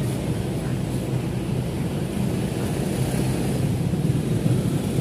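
Scania K410 coach's diesel engine running as the bus pulls slowly into the terminal: a steady low rumble, growing slightly louder toward the end.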